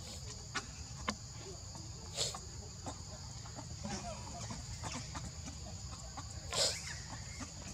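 Steady high-pitched insect drone with scattered short animal calls over it; the loudest call comes about six and a half seconds in.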